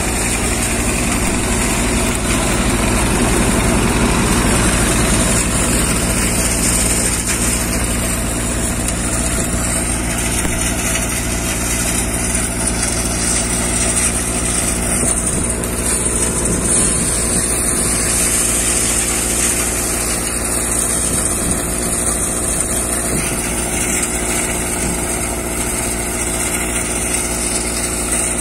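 Swaraj 724 XM Orchard tractor's two-cylinder diesel engine running steadily, driving a Yoddha multicrop thresher that is running along with it, with a constant high hiss.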